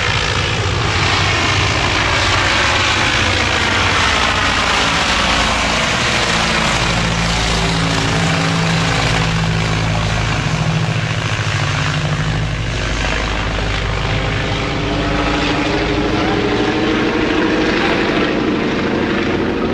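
Junkers Ju 52 trimotor's three radial engines at full takeoff power, a loud steady propeller drone as the plane rolls down the runway and climbs away. The engine pitch falls as it passes by, and an engine tone rises again near the end as it climbs out.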